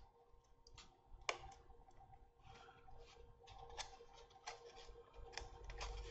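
Faint, scattered clicks and light rustling of the Depron foam parts of a micro radio-control model aircraft being handled and pressed against each other, with one sharper click a little over a second in.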